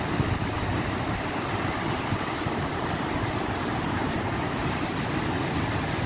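Steady rush of a swollen, muddy river pouring over wide waterfalls and rapids, with wind buffeting the microphone and adding an uneven low rumble.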